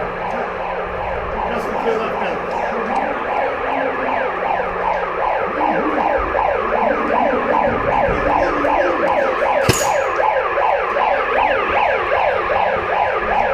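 Electronic game siren at an indoor airsoft field, sounding loud and continuous as rapid, overlapping falling sweeps. It is the game signal that holds the players in place until it stops. A single sharp click sounds about ten seconds in.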